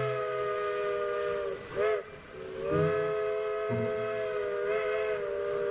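Chime whistle of steam locomotive No. 40 on the Georgetown Loop Railroad, a chord of several steady tones. It sounds one long blast that ends about one and a half seconds in, a brief toot, then a second long blast from about three seconds in that runs almost to the end.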